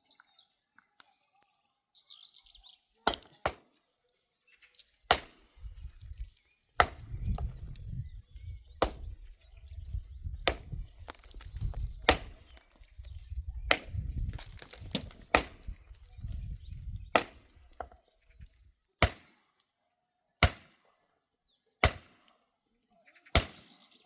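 A series of sharp single strikes, about one every one and a half to two seconds, fourteen or so in all, with a low rumble beneath them through the middle.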